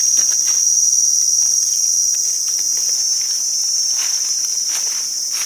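Steady, high-pitched drone of insects, with a few faint rustles of dry leaf litter.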